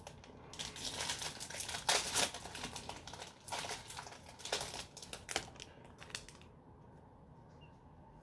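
Foil booster pack wrapper of a Yu-Gi-Oh card pack crinkling as it is torn open and handled, a dense run of crackles that dies down about six and a half seconds in.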